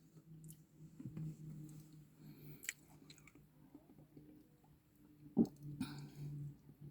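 Faint close-up chewing and biting of food, with scattered small clicks and a sharper one about five and a half seconds in, over a steady low hum.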